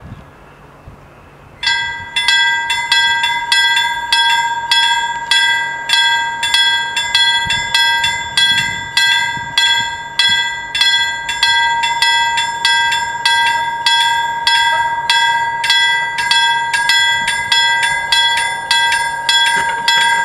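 Level crossing warning bells start about two seconds in and ring on in rapid, even strikes with a clear ringing tone, signalling that a train is approaching and the barriers are lowering.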